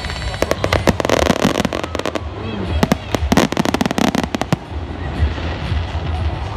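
Fireworks going off in a rapid string of sharp cracks, densest in two clusters, stopping about four and a half seconds in.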